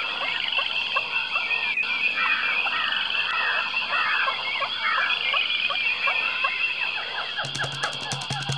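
Forest ambience of many birds chirping and calling over a steady high chorus. Near the end, music with a quick drum beat comes in.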